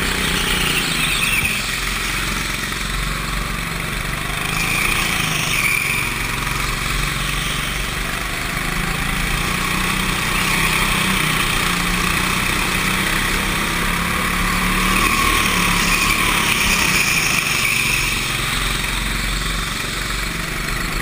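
Go-kart engine running at speed beneath the onboard camera, its note rising and falling as the driver works the throttle through the corners.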